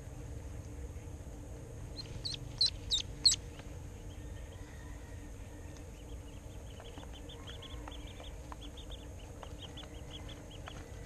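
Domestic duckling peeping while held in the hand. There are four loud, high peeps about two seconds in, then a run of quicker, fainter peeps through the second half.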